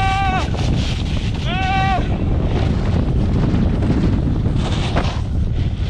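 Wind buffeting the microphone of a self-filming camera as a snowboarder rides down a powder slope. Two short, high-pitched held yells, each dropping at the end: one at the very start and another about a second and a half in.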